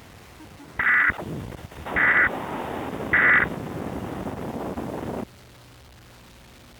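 Three short bursts of EAS digital data tones, the SAME end-of-message code, about a second apart, over a rough rumbling noise. The noise cuts off suddenly about five seconds in, leaving a faint low hum.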